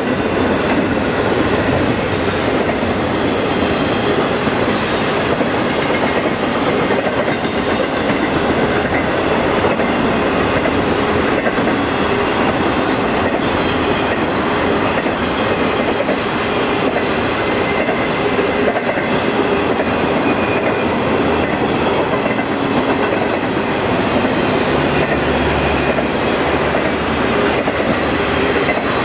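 Double-stack intermodal freight train passing close by: a loud, steady noise of steel wheels rolling on the rails under the container well cars.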